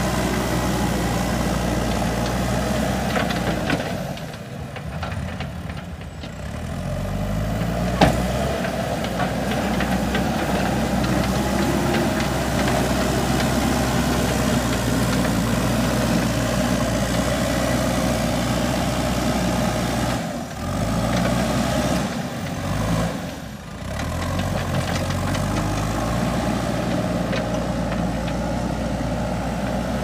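JCB backhoe loader's diesel engine running under load as the front bucket pushes soil. The engine eases off about four seconds in, revs back up with a sharp clank about eight seconds in, and dips briefly twice more about two-thirds of the way through.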